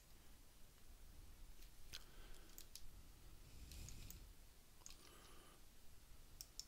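Near silence with a few faint computer mouse clicks scattered through, over a low room hum.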